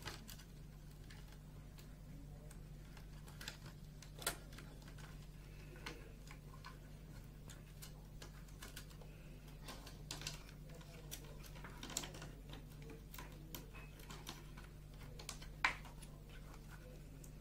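Faint, irregular clicks and taps of plastic as fiber-optic pigtails are handled and tucked into a plastic splitter box tray, a few sharper clicks standing out. A steady low hum runs underneath.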